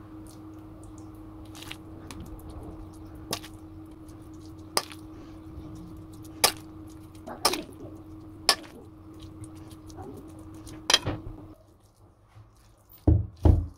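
A metal spoon clinking and tapping against a metal baking pan every second or two while it spreads a wet spinach filling, over a steady low hum that stops about eleven seconds in. Two low thumps come near the end.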